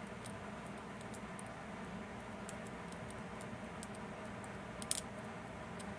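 Faint small metallic clicks from the levers and gears of a disassembled Fichet 787 lever lock being moved by hand, with one sharper click about five seconds in, over a steady low hum.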